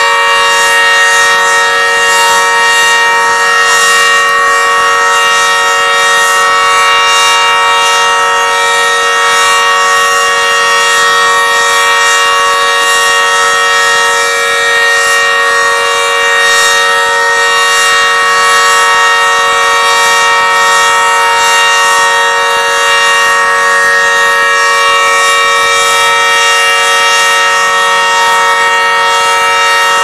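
Emergency Alert System style attention tone: a loud, steady chord of several pitches held unchanged, with no rise or fall.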